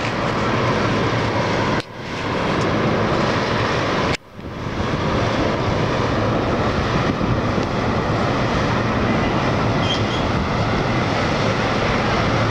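Steady loud rushing outdoor noise with no voices, cutting out sharply for a moment about two seconds in and again about four seconds in.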